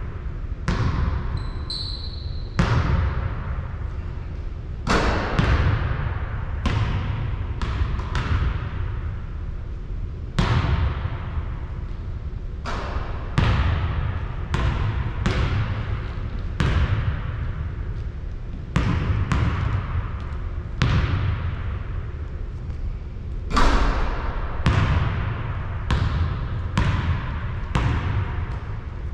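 A basketball bouncing on a hard court, with sharp, echoing hits coming irregularly about one to two seconds apart. A short high squeak sounds about two seconds in.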